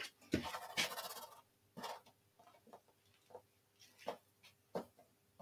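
Faint rustling of hair being pulled out and worked through with fingers on a mannequin head, with a brief scratchy burst at the start, then a few small, scattered clicks.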